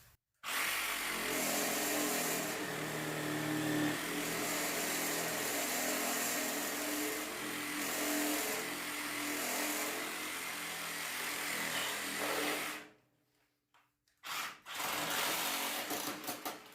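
Sawzall reciprocating saw with a ripping blade cutting through a rubber tire and its foam-rubber filling, running steadily for about twelve seconds, stopping, then running again briefly near the end.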